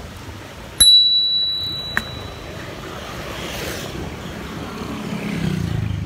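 Bicycle bell struck once: a sudden bright ding that rings on for about a second and is cut off by a click, over the steady noise of riding.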